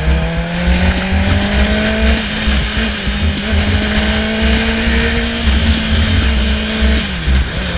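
Honda CBR650F's inline-four running through a Two Brothers aftermarket exhaust at road speed. The note climbs slowly as the bike accelerates, then falls about seven seconds in as the throttle closes. Wind buffets the microphone.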